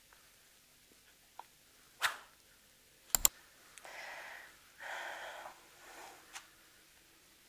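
Tabletop handling sounds: a faint click, a sharp click, then a loud sharp double click of small hard objects, followed by three short soft hissing noises.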